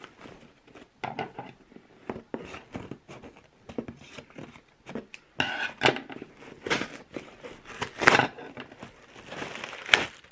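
Packing tape being picked at and torn off a cardboard box in irregular ripping and scratching bursts, with the cardboard flaps pulled open. A clear plastic bag crinkles near the end.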